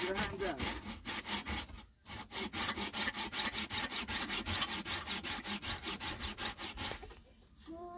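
Hand saw cutting in quick, even strokes, about five a second. The sawing pauses briefly about two seconds in and stops about seven seconds in.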